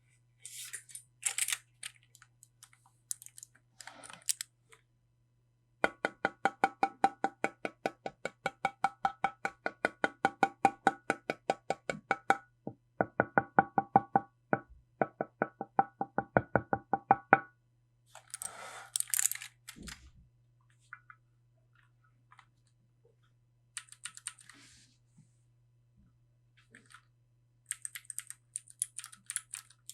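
Keychron Q1 mechanical keyboard with Gateron Phantom Blue switches being keyed: a long run of even, ringing keystrokes about five a second, broken twice, with scattered lighter, hissier clicks before and after. A faint steady hum lies underneath.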